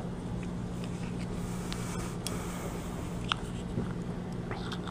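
Steady low background hum with a faint hiss and a few faint, scattered clicks.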